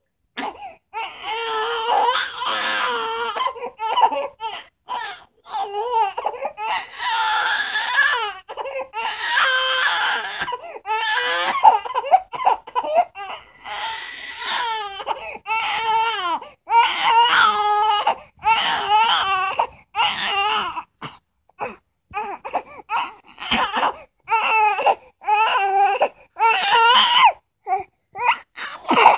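Infant crying in repeated high wails, longer drawn-out cries in the first half giving way to shorter, choppier cries later.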